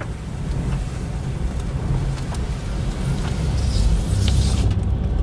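Car driving: a steady low rumble of engine and road noise that grows louder toward the end, with a few light clicks.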